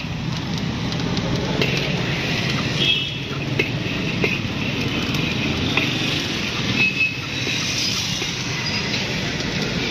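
Metal scoop stirring and scraping hot sand and black chickpeas around a large iron wok as they roast, a continuous gritty scraping with a few sharp clinks of metal on the pan, over a steady low hum.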